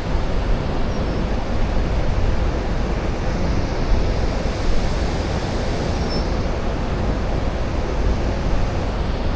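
Steady rushing noise of wind and river water, heaviest in the low rumble, with no distinct events.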